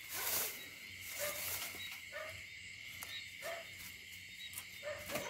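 Night insects such as crickets trill steadily, with a few faint clicks and rattles from a wire-mesh cage trap being handled.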